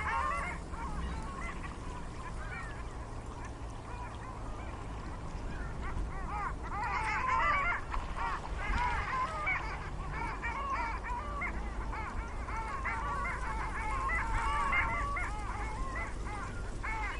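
A flock of ducks on a pond calling, many short honking quacks overlapping. The calls are sparse at first and grow into a dense, busier chorus from about seven seconds in, over a steady low rumble.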